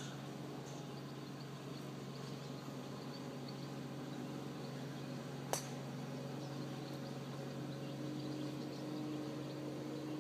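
A single sharp crack of a golf club striking a ball on a tee shot, about five and a half seconds in, over a steady low hum and outdoor background hiss.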